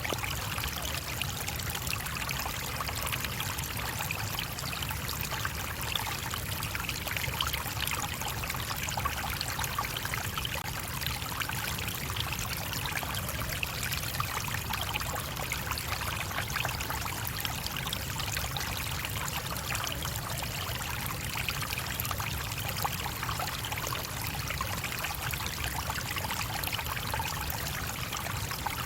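A shallow stream flowing and babbling over rocks, a steady rush of water without breaks.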